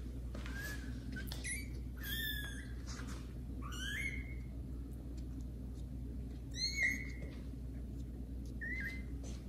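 Young kittens meowing loudly: about six high-pitched calls, each rising and then holding, spaced a second or two apart, the loudest about seven seconds in.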